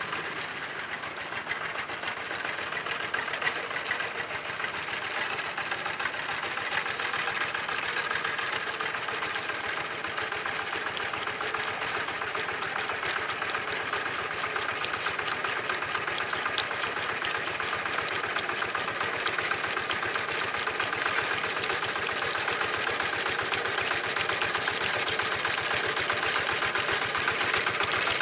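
Old Kubota single-cylinder diesel engine on a two-wheel hand tractor running under load as its cage wheels level a flooded rice paddy, with a fast, even firing beat. It grows steadily louder as the tractor comes closer.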